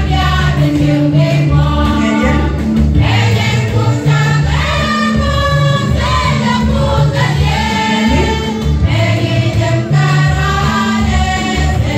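A women's choir singing a hymn together, with loud sustained notes that change every second or so.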